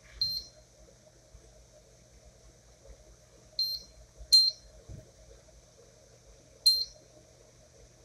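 Vent hood's touch control panel beeping as its buttons are pressed. There are four short high beeps: one near the start, two close together about halfway, and one near the end. The beeps show the rewired control board responding to the presses.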